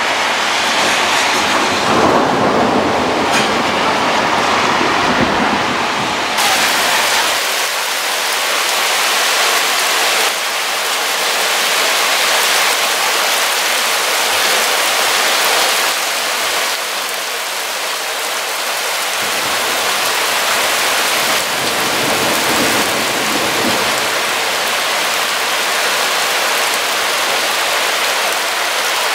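Heavy rain pouring down on trees as a steady hiss, with a low rumble of thunder under it for the first several seconds that ends abruptly about seven seconds in.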